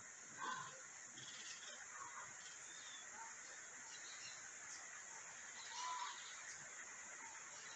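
Wild birds chirping and calling at a farm, with two louder short calls, one about half a second in and one about six seconds in, over a steady high-pitched background buzz.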